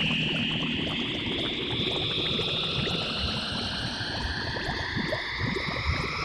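Electronic science-fiction sound effect: several tones slowly gliding upward in overlapping sweeps over a constant crackling, bubbling texture.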